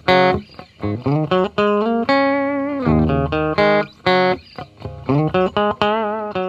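Intro music: a plucked melody of quick separate notes, some of them bent or wavering in pitch.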